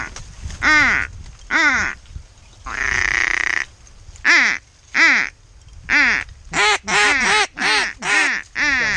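Mallard duck call blown in a sequence of loud, separate quacks, with one longer drawn-out note about three seconds in and the quacks coming faster near the end: calling to mallards coming in to the decoys.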